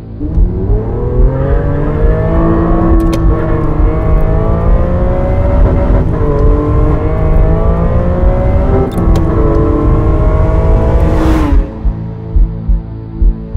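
Sports car engine accelerating hard, its pitch climbing and dropping back at gear changes about six and nine seconds in, ending with a loud whoosh of the car passing about eleven and a half seconds in. A slow thumping pulse, like a heartbeat, takes over near the end.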